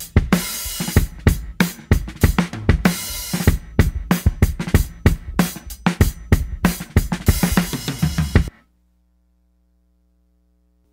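Hip-hop instrumental outro: a drum beat of bass drum, snare and hi-hats with no vocals. It cuts off abruptly about eight and a half seconds in, leaving near silence with a faint low hum.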